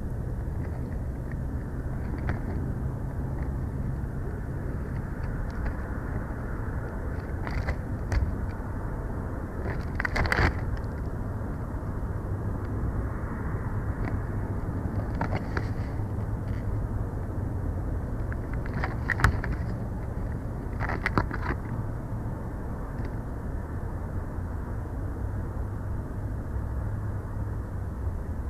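Steady low outdoor rumble with a faint hum, broken by several brief crackling rustles as bald eagles shift about on their nest of sticks.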